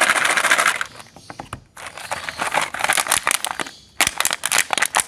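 Hard mint candies crunching and cracking in a meat grinder: dense runs of sharp crackling clicks that stop for about a second twice, with sharper separate cracks near the end.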